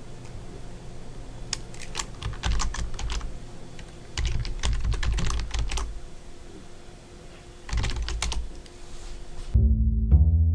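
Typing on a computer keyboard in several short bursts of keystrokes. Near the end, music with plucked and bowed strings starts.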